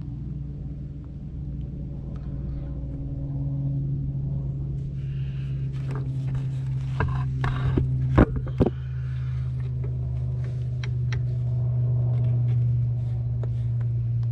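Metal clinks and rattles of hand work on a tractor's clutch assembly, with two sharp metallic knocks about eight seconds in, over a steady low hum.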